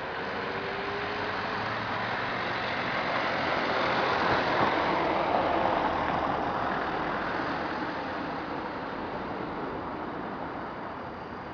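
A road vehicle passing by: a rushing noise that swells to its loudest about five seconds in, then fades away.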